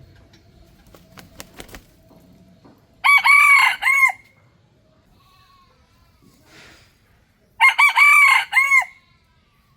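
Red junglefowl rooster crowing twice, about four seconds apart, each crow a short call of about a second that falls away at its end.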